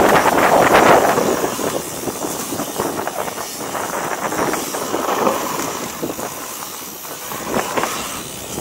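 Wind buffeting the microphone of a chest-mounted action camera during a mountain-bike descent, mixed with the mountain bike's tyres rolling over a dry dirt and leaf trail and short rattles from the bike. It is loudest for about the first second, then eases off.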